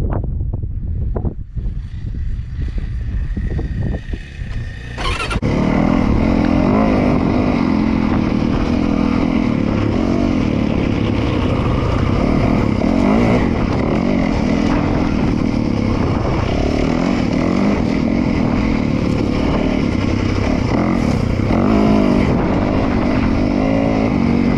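Dirt bike engine ridden off-road, heard from the rider's helmet camera: a lower rumble with wind on the microphone for the first five seconds, then the engine gets suddenly loud and runs on under load, its pitch rising and falling with the throttle and gear changes.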